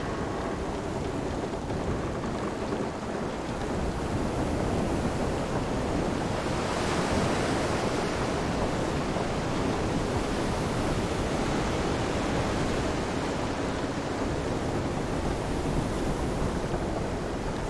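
Storm ambience of steady wind and surf noise, rushing without a break and swelling a little about seven seconds in.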